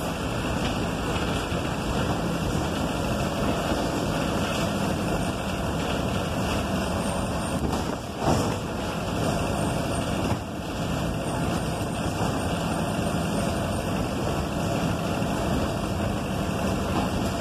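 City bus driving along a street, heard from inside the cabin: steady engine and road noise, with one brief louder burst about eight seconds in.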